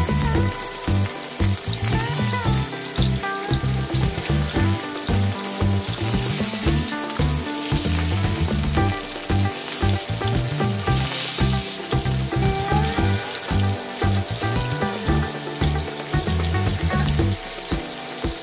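Catla fish pieces sizzling as they fry in hot mustard oil in a pan, the sizzle flaring up several times in the first twelve seconds or so as more pieces go into the oil. Music plays underneath.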